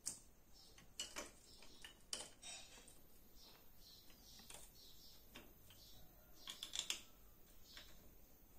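Faint, scattered small clicks and ticks as a screw is turned by hand into a metal TV wall-mount bracket, with a short flurry of clicks about six and a half seconds in.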